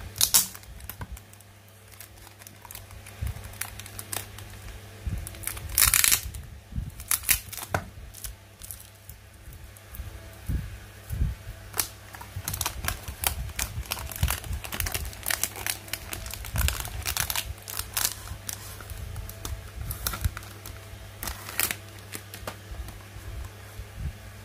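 Clear plastic wrap and a cardboard diecast-model box being handled and peeled open: irregular crinkling and crackling with sharp taps, loudest just after the start and about six seconds in. A steady low hum runs underneath.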